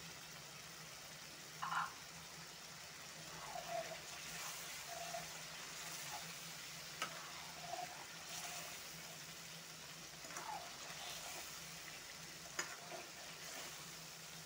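Thick dry-fish masala gravy quietly sizzling in a metal kadai while a spatula stirs it, with a few short scrapes of the spatula against the pan. A faint steady hum runs underneath.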